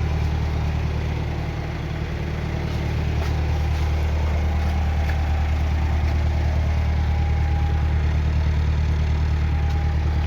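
Narrowboat engine running steadily at a low, even hum.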